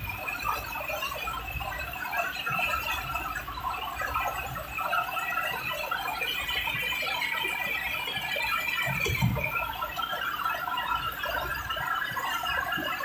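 Heavy rain heard from inside a moving car: a dense, continuous scatter of short high squeaks and pings over a low road rumble, with one dull thump about nine seconds in.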